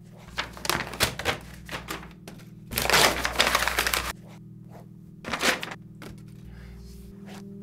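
Quick pen strokes scratching on sketchpad paper, then a sheet of paper crumpled loudly in the hands for about a second and a half. A brief rustle follows about five and a half seconds in as the paper ball drops into a wastebasket. A faint steady music bed runs underneath.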